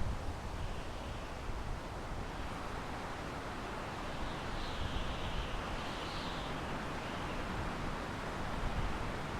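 Wind blowing through pine trees: a steady rushing hiss that swells a little about five seconds in.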